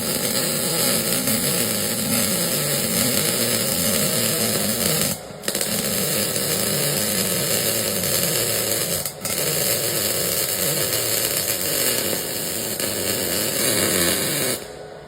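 MAG welding arc on thin 2 mm steel, a steady crackling buzz that breaks off briefly twice.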